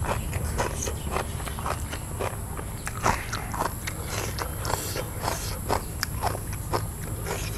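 A person chewing crunchy food close to the microphone, with irregular crisp crunches a few times a second.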